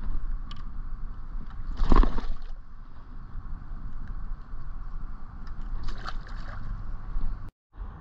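Water sloshing and lapping against a kayak hull, with wind rumbling on the microphone. A brief louder splash comes about two seconds in, and the sound cuts out for a moment near the end.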